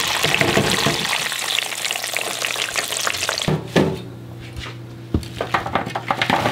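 Fries sizzling in the hot oil of an electric deep fryer, a loud, steady frying hiss for about three and a half seconds. Then a knock, and near the end a run of clicks and rattles as the wire fry basket is tipped out onto a tray.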